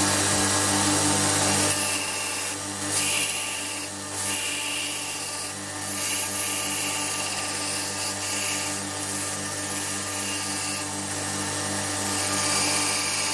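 Belt sander running with a steady motor hum, and a hardwood knife-handle scale being ground against the abrasive belt in repeated hissing passes.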